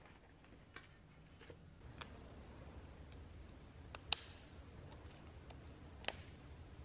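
Scissors snipping through plastic shrink wrap on a small wrapped pack: two sharp snips about two seconds apart, the first followed by a brief crinkle of the plastic. Faint clicks and rustles of handling come before them.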